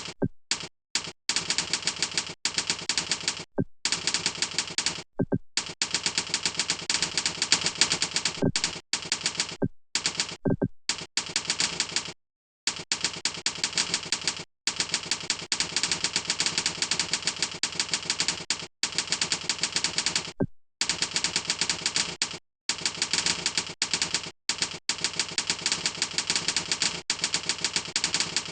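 Computer keyboard typed rapidly: a fast, dense clatter of keystrokes in long runs, broken every few seconds by short pauses.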